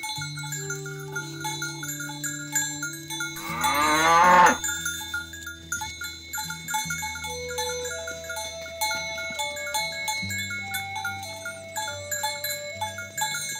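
A cow moos once, a loud call of about a second starting about three and a half seconds in, over background music with steady bass notes and a repeating light melody.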